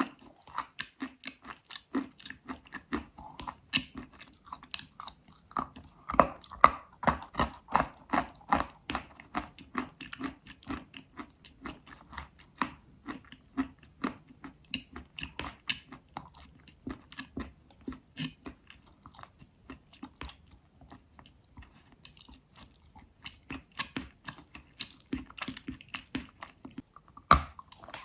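Pieces of purple and pink chalk being bitten and chewed: a dense run of dry crunches and crackles, several a second, with louder bites about six to nine seconds in and again near the end.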